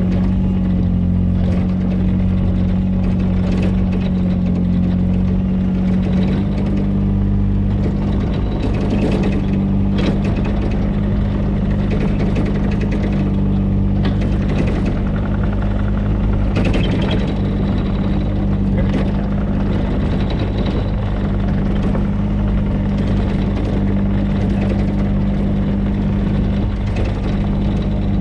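Mini excavator engine running steadily under load; its pitch steps up slightly about six seconds in. Short knocks and scrapes are scattered through, as from the bucket and linkage at work.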